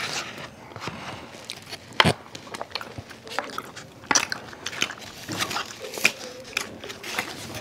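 Close-miked eating: chewing of spaghetti and garlic bread, with sharp clicks of forks against plates. The loudest click comes about two seconds in.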